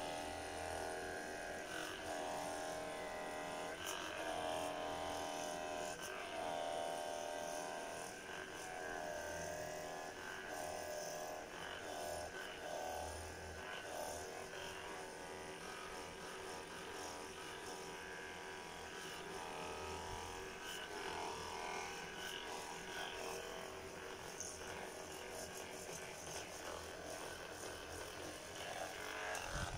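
Handheld percussion massage gun running with a steady electric buzz as it is worked over the thigh and side.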